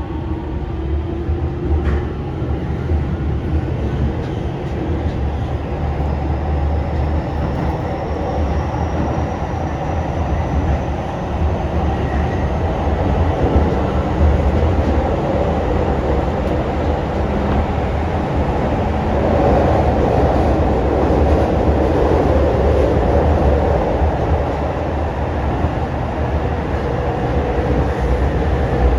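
Toei 10-300 series train running: the Mitsubishi IGBT-VVVF inverter and its induction motors give several rising whining tones over the first ten seconds or so as the train picks up speed, over the steady rumble of wheels on rail.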